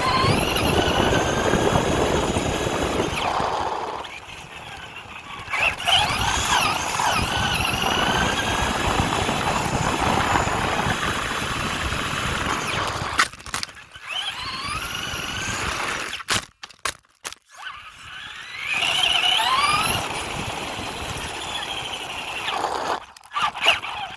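RC car driving with the microphone riding on its front: the drive motor's whine rises and falls in pitch with the throttle over a loud rattling rumble of chassis and tyres. It drops out briefly several times as the car stops and starts.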